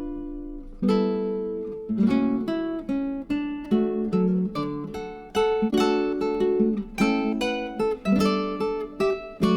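Background music: acoustic guitar playing plucked chords in a steady rhythm.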